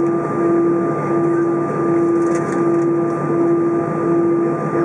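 Jet airliner engines running at taxi power: a steady droning hum that swells and dips about every three-quarters of a second, with fainter steady whining tones above it.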